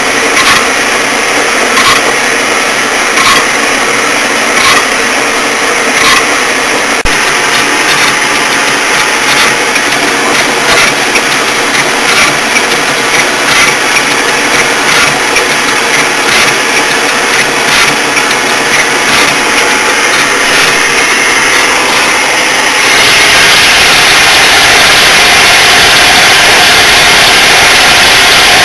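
Metal lathe running while facing a small engine's cylinder head, with a regular ticking from the cut. About 23 seconds in, the sound becomes a louder, steady whir from the lathe's headstock gears.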